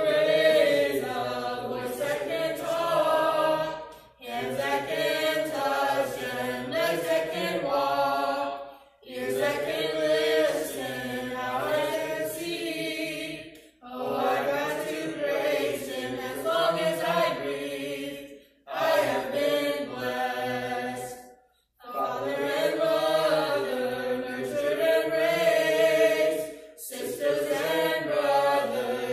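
Small mixed group of men's and women's voices singing a gospel song together in harmony, unaccompanied, in long phrases broken by short pauses for breath.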